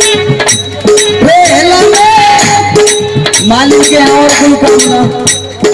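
Live rasiya folk music, loud: a wavering, bending melody line over a steady held drone note, with regular percussion strikes and a rattling, tambourine-like beat.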